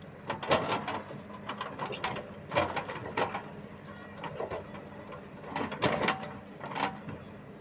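Demolition machinery at work: irregular metallic clanks and knocks, several loud ones spaced a second or so apart, over a steady low engine hum.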